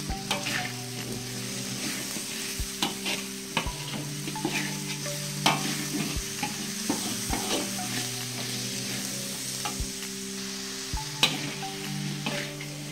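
Diced tempe and salted squid sizzling in a wok in sweet soy sauce while a spatula stirs them, scraping the pan and knocking against it every second or so.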